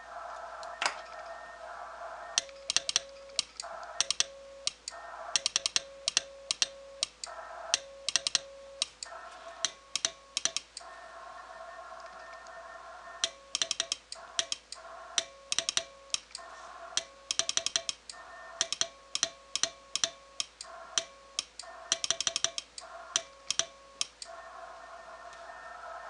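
Hand-sent Morse code on a straight key, signing 'de KB1THM': the key's contacts click sharply with each dot and dash while the Yaesu FT-891's sidetone beeps a steady low note. The receiver's band hiss cuts out whenever the key is down. Sending pauses for a couple of seconds near the middle.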